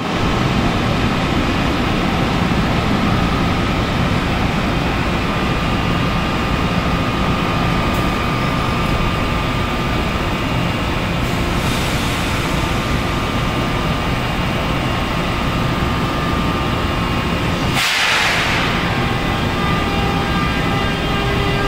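NJ Transit ALP46 electric locomotive's VVVF traction inverter whining with several steady tones over a deep rumble as the locomotive departs, shoving its train. A short, sharp hiss breaks in about 18 seconds in.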